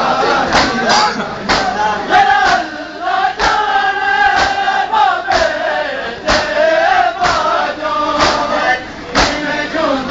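Crowd of men chanting a noha of mourning together, with a sharp beat about once a second from hands striking chests in matam.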